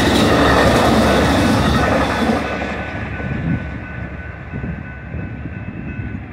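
Bilevel passenger train cars rolling past over a grade crossing, a loud rumble of wheels on rail that fades about two seconds in as the last car clears. A faint steady high tone lingers afterwards.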